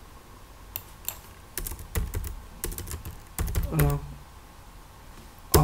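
Computer keyboard typing: short key clicks in irregular bursts, with one louder keystroke near the end.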